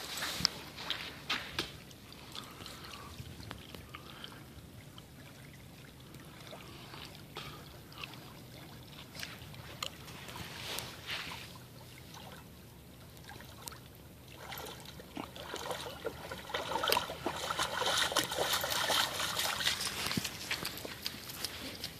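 Creek water sloshing and splashing around a golden retriever as it swims and then wades out through the shallows. The splashing grows louder for the last several seconds as the dog walks out of the water.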